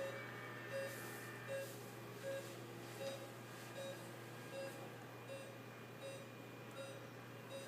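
Patient monitor beeping in a steady rhythm, a short electronic beep about every three-quarters of a second, over a low steady hum.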